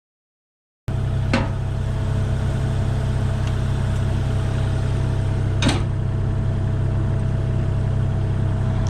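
Excavator engine running steadily with a thin high whine over it, cutting in abruptly about a second in; two sharp clicks land about four seconds apart.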